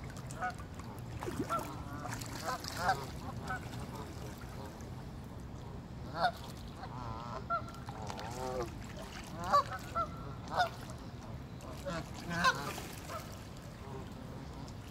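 A flock of Canada geese honking, short calls coming every second or two, with a longer wavering call about halfway through.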